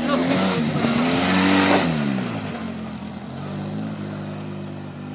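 Engine revving up, rising in pitch for about a second and a half, then easing off and running on steadily at a lower speed.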